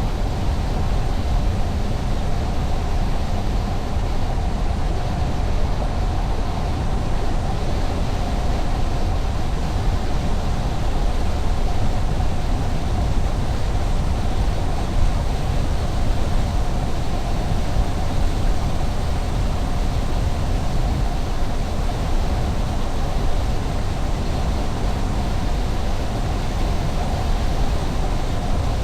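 Steady road noise of a car driving at a constant speed: a low tyre rumble on the pavement with a steady hum over it.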